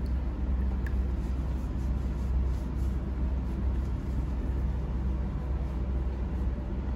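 Steady low rumble of background noise, even throughout, with no clear distinct events.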